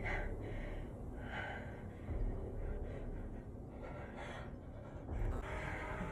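Heavy, frightened breathing and gasps over a steady low rumble.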